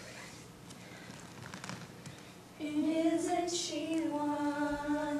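A solo voice singing without accompaniment, coming in about two and a half seconds in with long held notes. Before it there are only a few faint clicks.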